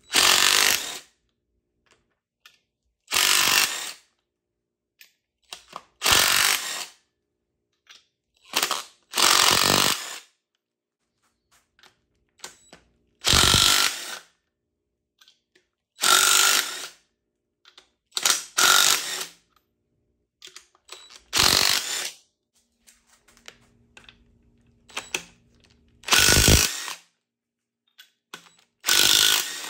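Power wrench run in about a dozen short bursts of under a second each, two to three seconds apart, with near quiet between.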